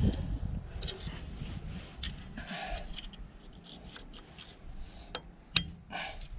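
Scattered light clicks and taps of metal engine parts being handled and fitted by hand at the base of a tractor cylinder, with one sharper click about five and a half seconds in.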